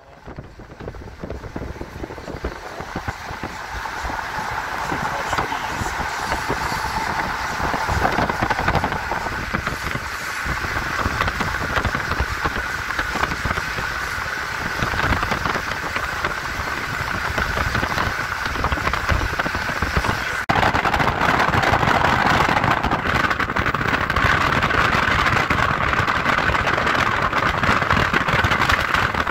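Steady road and wind noise of a car driving, fading in at the start and growing louder about two-thirds of the way through.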